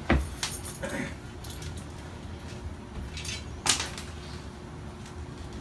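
Scattered clunks and clicks of metal parts and tools being handled, the loudest right at the start and another sharp knock a little over three and a half seconds in, over a low steady hum.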